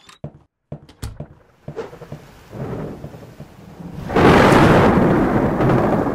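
Thunderstorm sound effects: a few sharp knocks, then rain noise building into a loud thunder crash about four seconds in that slowly fades.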